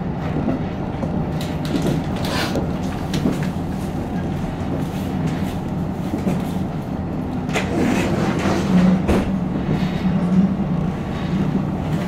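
KiHa 54 diesel railcar running, heard from inside the car: a steady low engine and running hum, with a few sharp clicks from the wheels now and then. The hum grows stronger about two thirds of the way through.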